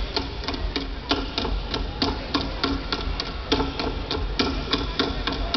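Step-team stepping: stomps and hand claps on a stage, a fast, uneven rhythm of sharp strikes, several a second.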